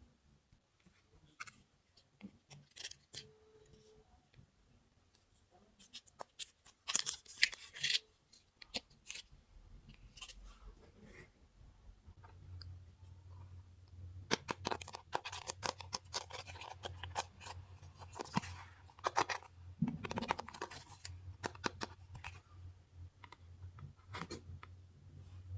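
Small plastic toy pieces and packaging being handled at close range: scattered sharp clicks and taps, a rustling burst about seven seconds in, and denser clicking through the middle, over a low hum.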